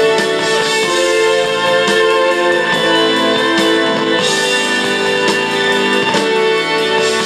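Music with a steady beat, playing back from a tape on a Superscope C-205 three-head cassette recorder.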